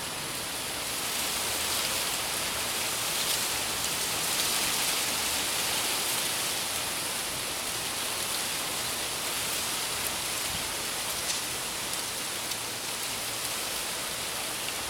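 Thunderstorm rain pouring steadily, getting louder about a second in, with a few faint drop ticks.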